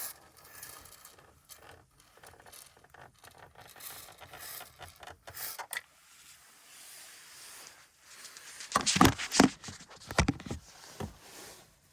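Plastic interior trim of a car being handled, rubbing and scraping, with a cluster of louder scraping bursts about nine seconds in. The part is one the owner is trying to quieten because it creaks when pressed.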